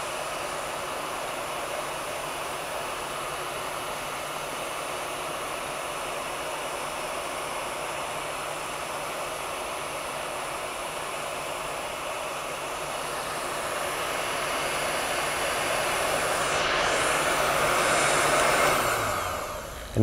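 Electric heat gun's blower running steadily, blowing hot air to shrink heat-shrink tubing over a cable end. The rushing grows louder in the last few seconds, then dies down just before the end.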